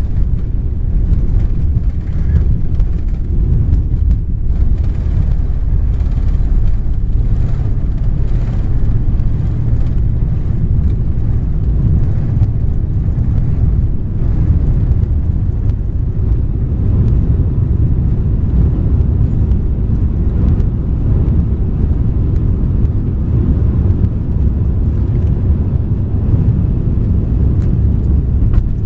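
Cabin noise of an Airbus A340-300 on takeoff: its four CFM56-5C engines at takeoff thrust heard through the fuselage as a loud, steady low rumble, as the aircraft lifts off the runway and climbs.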